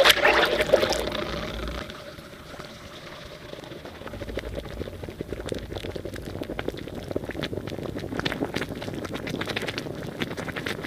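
White powder in a glass beaker reacting violently with poured water: a loud hissing crackle that fades over the first two seconds, then a steady sizzling crackle with many small pops.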